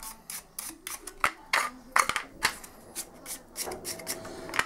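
Paintbrush dry-brushing across a corrugated plastic yoghurt pot: quick, scratchy brush strokes, about three a second.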